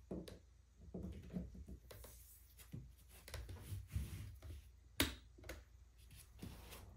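Black plastic electric kettle being handled on a tabletop: scattered light taps and knocks of plastic, with one sharp click about five seconds in.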